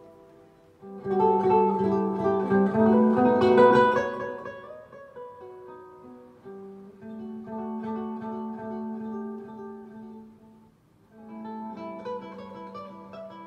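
Acoustic guitar music from a CD playing through a Sony TA-F3000 integrated amplifier and its loudspeakers, showing that the amplifier works. It gets louder about a second in, softens in the middle and dips briefly near the end.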